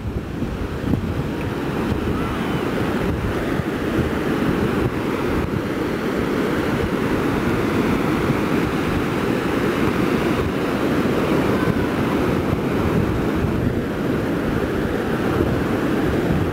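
Wind rumbling on the microphone over a steady wash of sea surf.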